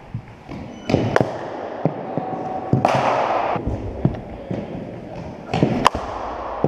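Sharp knocks of cricket balls in indoor nets, the sharpest near the end as the batter swings and strikes the ball with the bat. A short burst of hiss comes about three seconds in.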